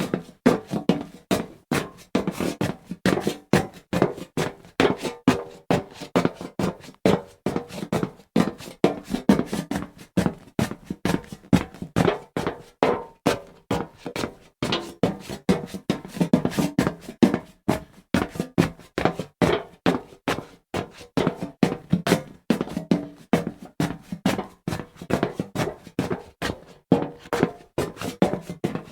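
Footsteps walking on hollow metal, a steady run of about two to three clanking steps a second, each step ringing briefly.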